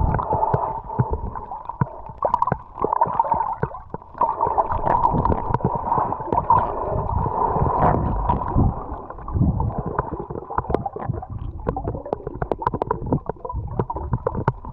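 Dolphins heard underwater, with wavering whistles and many short clicks over the gurgling and rushing of water against the camera housing.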